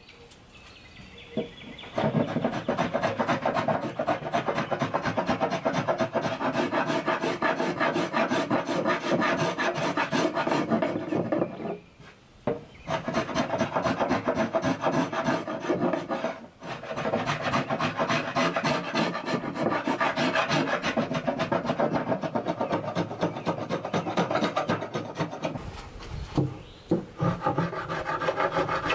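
Rasp filing oak in a continuous run of fast, rough scraping strokes. It starts about two seconds in, stops briefly about twelve seconds in, and breaks off again near the end before starting once more.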